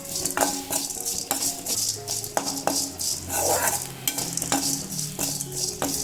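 A spatula stirring and scraping pepper, cumin and tamarind as they dry-roast in a pan, in short strokes about twice a second over a light sizzle. Soft background music runs underneath.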